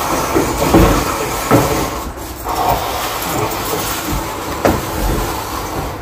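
An upright refrigerator being rocked and shuffled across the floor by hand: a continuous scraping rumble with several knocks as the cabinet shifts.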